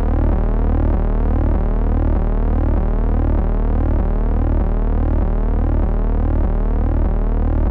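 Eerie synthesized soundtrack of a horror promo: a loud low drone throbbing about twice a second, under many tones that slide steadily in pitch.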